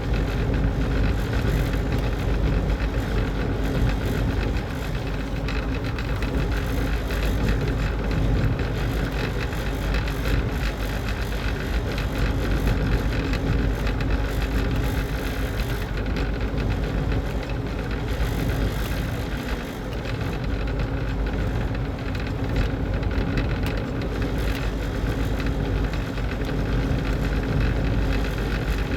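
Steady machine running: an even low rumble with a faint constant tone, no starts or stops.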